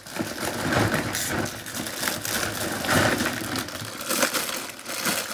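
Rustling and crinkling of a shopping bag and plastic packaging being rummaged through, an irregular run of small crackles and crunches.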